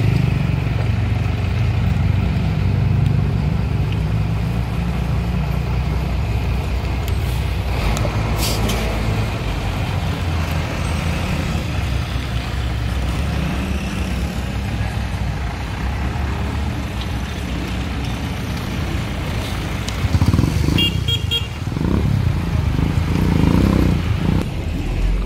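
Street traffic: vehicle engines passing, including a pickup truck at the start and a motorcycle swelling louder near the end, with a short horn toot about twenty seconds in.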